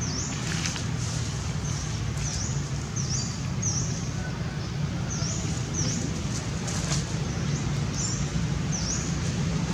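A small bird chirping: short, high calls that each dip and rise quickly in pitch, repeated irregularly over a steady low hum.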